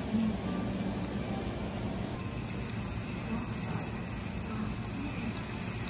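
Bulgogi broth boiling in a shallow metal bulgogi pan on a tabletop burner, a steady bubbling hiss, over a low murmur of voices.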